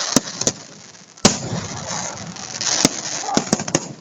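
Fireworks going off: a series of sharp bangs, the loudest about a second in and a quick run of three near the end, with a crackling hiss between them.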